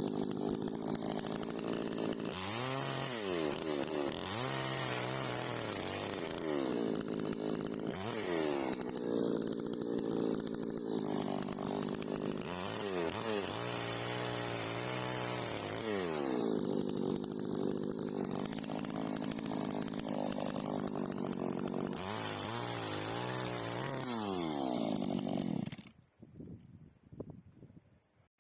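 Chainsaw engine running under load, its pitch repeatedly dropping and climbing again as it cuts and revs free. It stops near the end.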